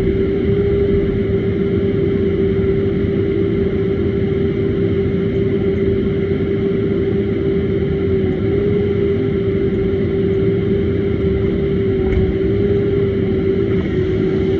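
CAT 501 HD mini excavator running steadily under hydraulic load, a constant hum over a low engine rumble.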